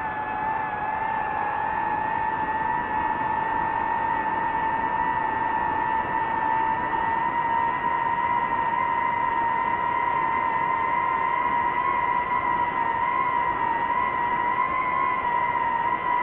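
DJI FPV drone's propellers and motors whining steadily in flight, one high tone climbing slowly in pitch as the motors speed up.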